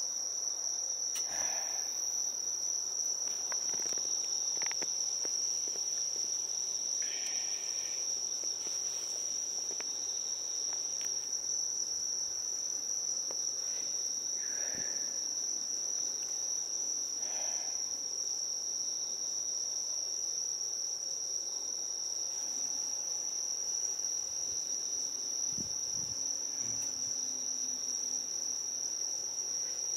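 A chorus of night insects singing steadily at one high pitch, the continuous trilling of crickets on a late-summer night.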